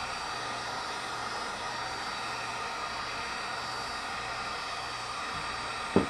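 Handheld electric hot-air blower running steadily with an even rushing hiss, heating the vinyl skin of a training arm to loosen it for removal. A single short thump sounds near the end.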